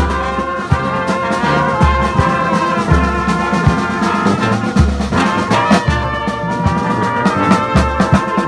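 Brass band playing a tune: sustained horn notes over low bass notes that recur about once a second.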